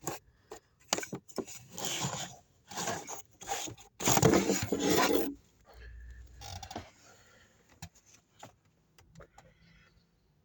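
Plastic rattling and rubbing from handling the removed cabin filter and the glove box trim: a run of irregular scrapes and knocks, loudest about four to five seconds in, then fainter scattered clicks.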